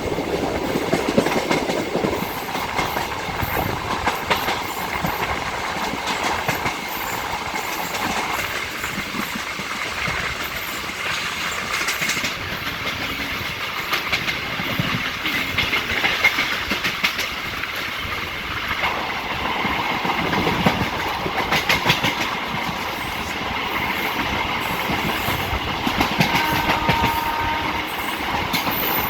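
Electric multiple unit (EMU) suburban local train running, its wheels clattering rhythmically over the rail joints.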